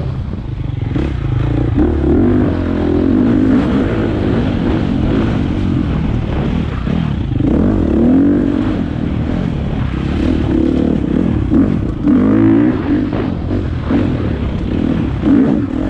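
Single-cylinder four-stroke dirt bike engine revving up and down over and over while riding, with a few clattering knocks.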